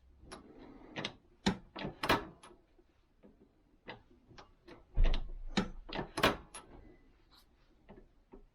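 Reloading press working a star-crimp die down on a .45 ACP brass case to close the crimp of a blank: a run of irregular metallic clicks and knocks from the press strokes, with a heavier thump about five seconds in.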